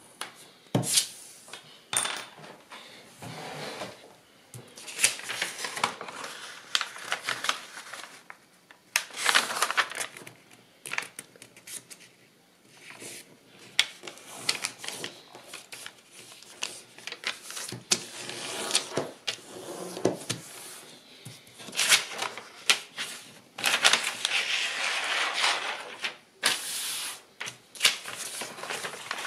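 Kraft paper being handled by hand, folded and smoothed flat: irregular rustling and crackling, broken by sharp taps and clicks.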